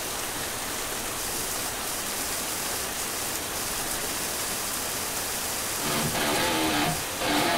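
Steady hiss of rain pouring down. About six seconds in, loud rock music with electric guitar comes in over it.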